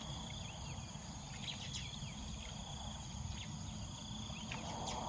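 Steady insect chorus of crickets, high and continuous, with a few short chirps scattered through it and a low background rumble.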